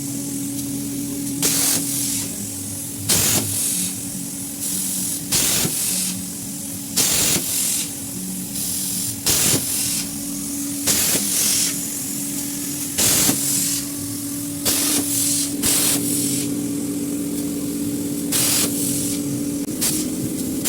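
Assist gas hissing from the nozzle of a CNC laser cutting head in about a dozen short blasts, one every second or two, as the gas switches on and off for each cut. A steady machine hum runs underneath.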